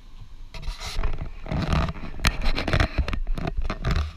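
Irregular scraping and rustling close on the microphone, with several sharp knocks, loudest in the second half: handling noise from the hand-held camera.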